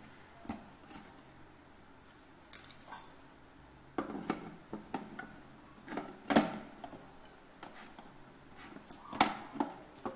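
A stainless steel mixer-grinder jar being set down onto and lifted off its plastic motor base: scattered clunks and clicks of metal on plastic as the jar's coupler seats, the loudest knock about six seconds in.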